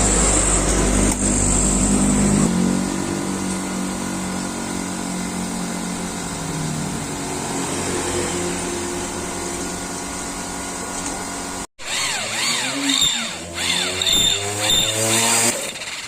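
A small motor running and changing speed, its pitch rising and falling. It cuts out abruptly about twelve seconds in, then comes back revving up and down.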